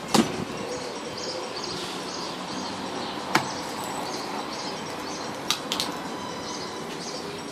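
Four sharp knocks and clacks of gas-grill parts being handled during unboxing, the loudest just after the start. Faint bird chirps sound over a steady background hiss.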